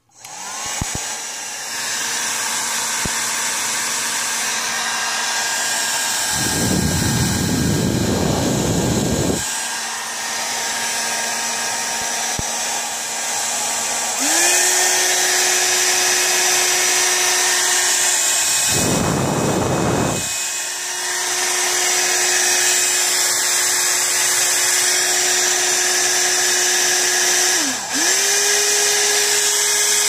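Vintage Magnum revolver-shaped hair dryer switched on: its motor and fan spin up and run with a steady whine, stepping up to a higher speed about fourteen seconds in, then dipping briefly near the end and picking up again. Twice a loud rush of air hits the microphone.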